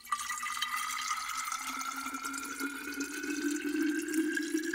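Beer pouring into a glass: a steady pour whose pitch rises slowly as the glass fills.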